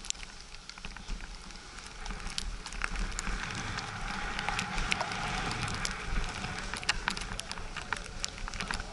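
Snow hissing and crackling under a rider sliding downhill, growing louder about two seconds in, with wind rumbling on the microphone.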